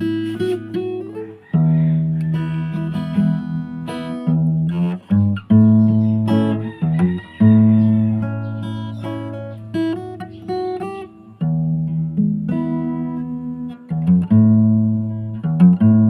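Background music: an acoustic guitar playing chords and picked notes.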